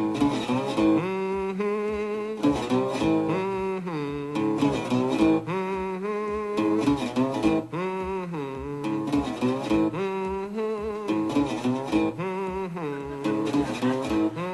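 Metal-bodied resonator guitar played in an instrumental passage, with a man humming a wordless melody over it.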